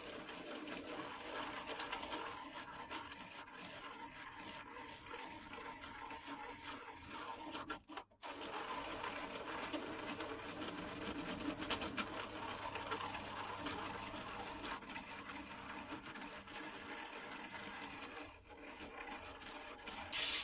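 Hand-cranked egg beater drill whirring as it spins a wooden handle against a rasp, the steel teeth scraping the turning wood. The sound breaks off briefly about eight seconds in, then carries on.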